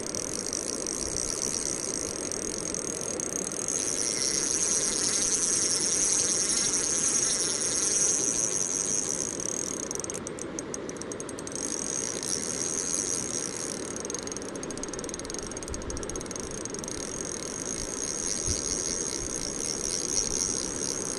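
A spinning reel is ratcheting steadily while a strong hooked fish, which the angler takes for a pike, pulls against the line, with a burst of fast clicks about ten seconds in. Rushing river current runs behind it.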